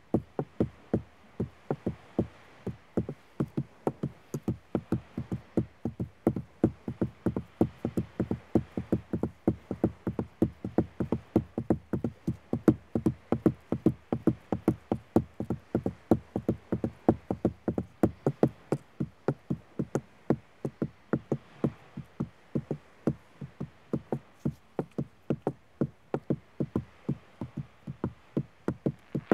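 Beach pebbles tapped against a hollow driftwood log in a quick, unbroken run of knocks, several a second, some louder than others. The wood gives each knock a low, resonant body.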